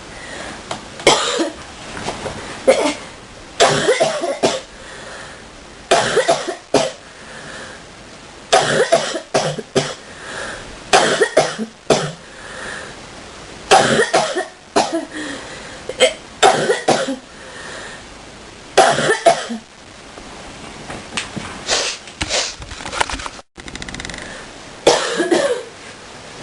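A person's deep coughing fit: about ten clusters of several hard coughs each, coming every two to three seconds with short pauses between them.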